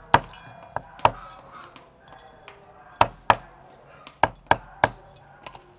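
Cleaver chopping on a thick round wooden chopping block, cutting the whiskers and legs off a river prawn: about eight sharp strikes in uneven groups, two near the start, two around three seconds in and three close together a little later.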